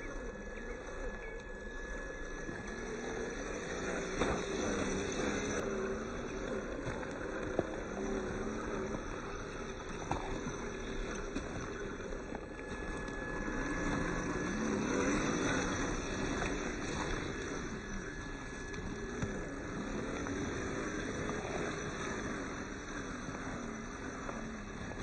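Electric motor and gearbox of an RC scale rock crawler whining, the pitch rising and falling with the throttle as it crawls over loose rocks. There is an even rattle of gravel under the tyres and a few sharp clicks.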